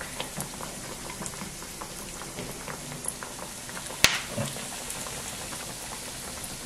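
Breadcrumb-coated bread slices frying in hot rice bran oil: a steady bubbling sizzle with light crackles. About four seconds in comes one sharp pop of spitting oil, which the cook puts down to a drop of water from her hand falling into the oil.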